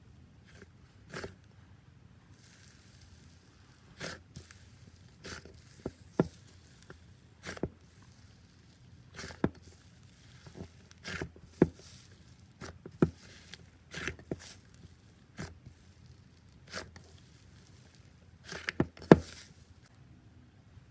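Slime being handled by hand: irregular short, sharp pops and squishes about a second apart, the loudest one near the end.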